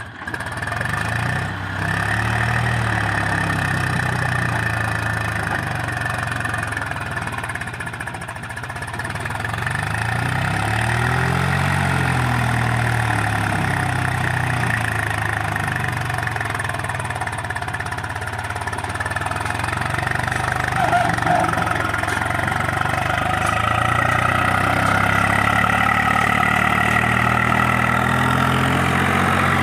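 Swaraj 735 FE tractor's three-cylinder diesel engine working under load as it pulls a fully loaded trolley, its revs rising and falling. It grows louder in the last few seconds as the tractor comes close.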